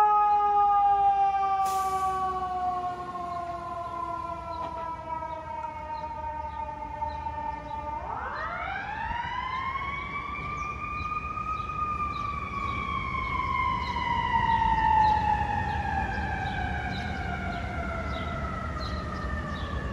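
FDNY fire engine's mechanical siren winding slowly down in pitch, then wound back up quickly about eight seconds in to a higher pitch and coasting down again.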